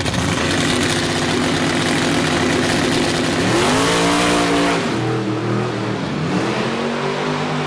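Plymouth Cuda drag car's 500-cubic-inch stroker V8 held at steady revs, then rising in pitch as the car pulls away from the line. The pitch drops about five seconds in and climbs again.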